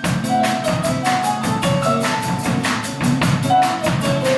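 Instrumental break of a small band with guitar, keyboard, double bass, drums and shaker: a steady percussion beat with short melodic notes above a walking bass line, no singing.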